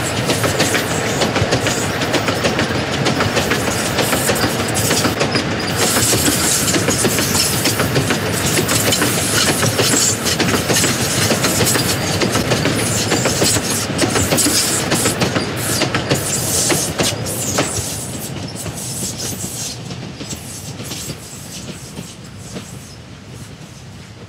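Loaded sugar cane bins of a two-foot-gauge cane tramway train rolling past, steel wheels clattering and clicking over the rail joints. The sound fades steadily over the last six seconds or so as the tail of the train moves away.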